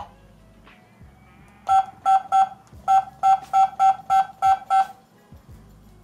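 Touch keypad of a CS108 WiFi/GSM alarm control panel beeping as a phone number is keyed in: about ten short beeps, all at the same pitch, one for each digit pressed, over about three seconds.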